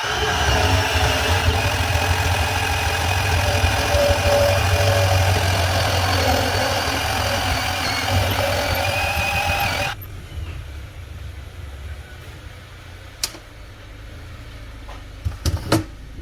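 Milwaukee M12 2429-20 cordless band saw running and cutting through schedule 40 pipe, a loud steady motor-and-blade sound that stops abruptly about ten seconds in as the cut finishes. A few sharp knocks follow near the end.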